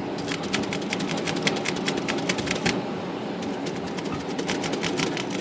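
Royal 10 manual typewriter keys struck one after another, type bars clacking up against the platen and dropping back, about six strokes a second with a short pause a little over halfway through. The bars are being run through to check that they return fully now that their bent links have been straightened.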